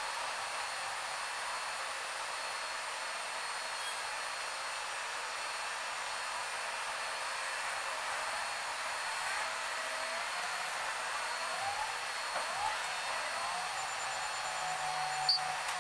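Steady outdoor background hiss, even and unchanging, with a few faint sliding tones in the last few seconds and a single sharp click near the end.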